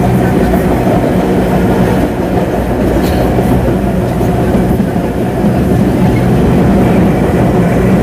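CPTM Série 2000 electric multiple unit standing at the platform, its electrical equipment giving a loud, steady hum made of several fixed tones.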